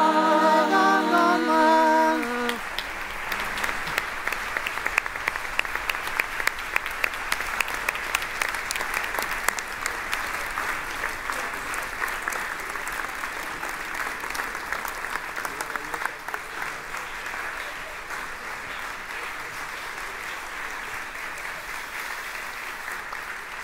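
Several voices holding a sung chord a cappella, cut off about two seconds in, then an audience applauding, the clapping slowly fading.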